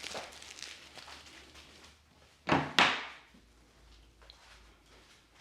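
Soft rustling of movement, then two loud, sharp knocks about a third of a second apart, a little past the middle.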